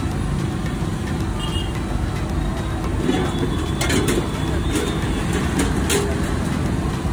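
Steady low rumble of street traffic, with background voices and a few sharp clicks and clatters in the middle.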